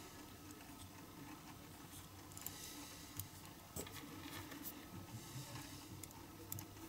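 Faint, scattered small clicks and rustles of hands handling a die-cast toy axle and its plastic wheels, with a drill bit tip tapping against the axle end. The drill is not running.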